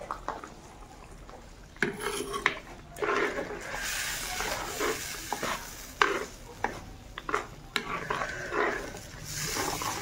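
A steel spoon stirs and scrapes spices through frying paste in an earthenware pot, with irregular clicks of the spoon against the clay. Under the clicks the masala sizzles in hot oil, louder a few seconds in and again near the end.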